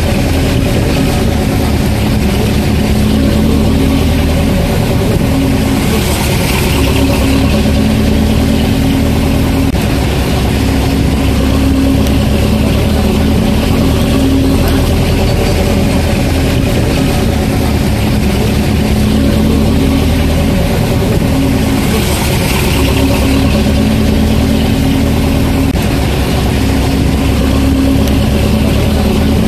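Vehicle engine running steadily with road noise, heard from inside the moving vehicle. A short swell of hiss comes twice, about six seconds in and again a little past twenty seconds.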